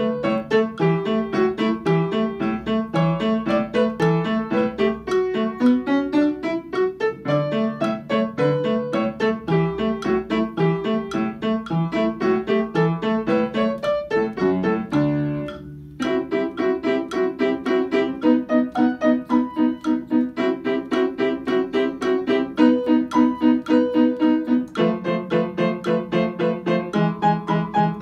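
Upright piano being played: a continuous stream of quick notes, broken about fifteen seconds in by a held note that dies away, then playing resumes with evenly repeated notes and chords.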